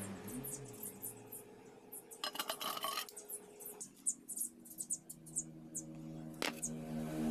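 Steel motorcycle roller chain links clinking and rattling as they are handled, with a dense rattle about two seconds in and a single sharp click near the end.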